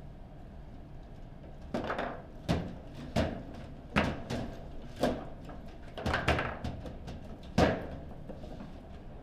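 Table football being played: a run of about eight sharp knocks and clacks as the plastic figures strike the ball and the ball and rods hit the table, starting about two seconds in, with the loudest knock near the end.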